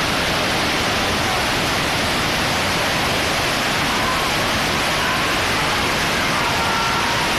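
Floodwater rushing: a river in spate giving a loud, steady, unbroken rush of water.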